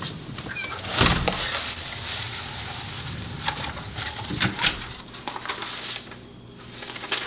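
A house door being handled: a loud thud about a second in, then a few sharp clicks, with a bird chirping briefly at the start.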